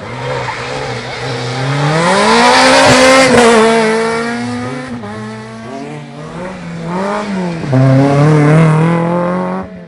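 Rally car engine at full throttle going by: the revs climb as it accelerates, loudest about three seconds in, then the pitch drops and rises again several times through gear changes and lifts, loud again near the end before cutting off abruptly.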